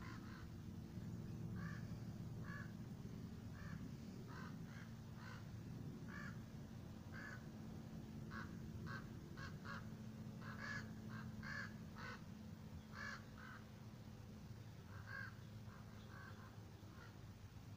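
A flock of birds calling as they fly overhead: many short calls in irregular succession, thickest in the middle. A low steady rumble sits underneath.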